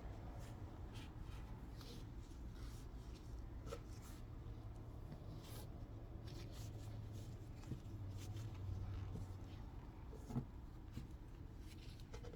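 Faint rubbing of a dry tissue wiping a phone's glass screen, with soft scrapes and a light click about ten seconds in, over a low steady hum.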